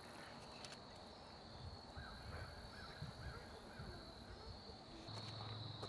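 Faint outdoor ambience: a steady high-pitched insect drone, crickets, with a few faint bird calls around the middle.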